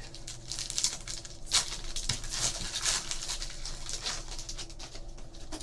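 A trading card pack's wrapper is torn open and crinkled, with the cards inside being handled: a dense, crackly rustle full of small clicks.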